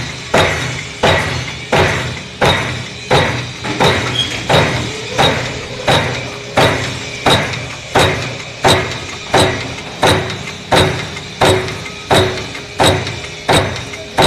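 J21S-630 punch press stamping sheet metal in continuous strokes, about one and a half a second, each a sharp bang that dies away. A steady low hum from the running press lies underneath.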